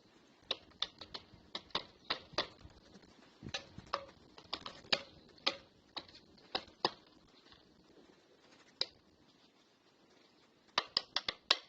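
A bird pecking and striking a security camera's housing: irregular sharp taps, in clusters of several, ending in a quick run of about five.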